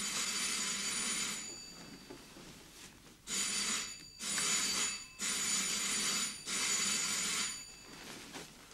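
Doorbell ringing violently in long rings: one ring stops about a second and a half in, then after a short pause four more follow in quick succession, each about a second long.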